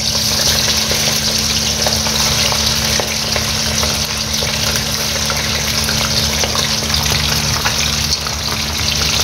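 Raw chicken pieces sizzling and crackling in very hot oil in an iron karahi: a steady hiss of deep frying as pieces are lowered in. A steady low hum runs underneath.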